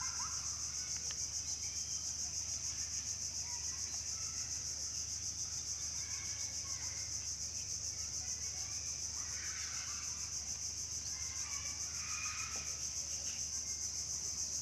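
Insects chirring in a steady high-pitched chorus that pulses evenly, with faint, scattered animal calls here and there.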